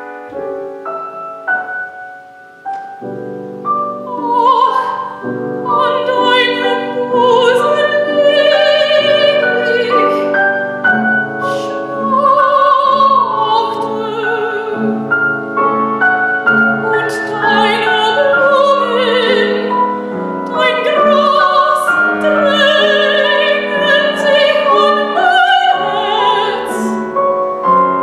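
Classical soprano singing with piano accompaniment. The piano plays alone at first, and the soprano comes in about three to four seconds in, singing with a strong vibrato over the piano.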